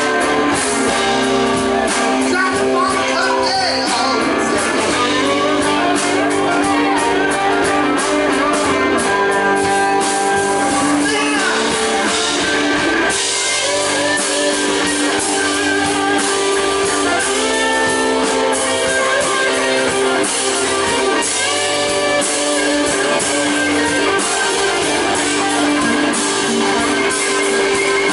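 Live band playing a blues number: electric guitars, bass guitar, drums and keyboard playing steadily.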